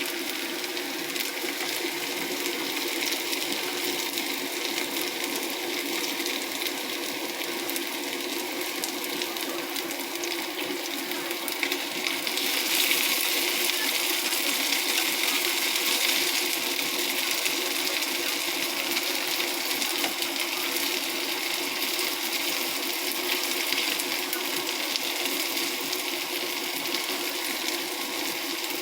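Hot oil sizzling and crackling around battered vegetable fritters (julienned potato, carrot, onion and chili) as they deep-fry. The crackle grows louder about halfway through.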